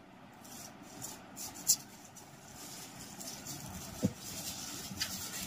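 Paper and a phone back panel being handled at a desk, giving light rustling with a sharp crinkle about a second and a half in and a soft knock about four seconds in, over a low steady rumble.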